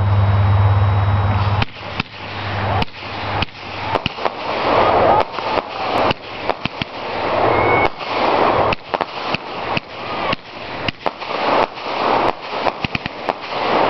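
Instigator consumer fireworks cake firing, starting about two seconds in: a rapid run of sharp shots and loud reports over a rushing hiss, with the tubes going off in quick succession.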